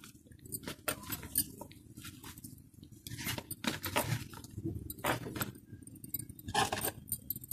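Boiled potatoes being mashed and squeezed by hand in a plastic bowl: soft squishing with irregular light clicks and clinks, fitting glass bangles on the wrist knocking together as the hand works.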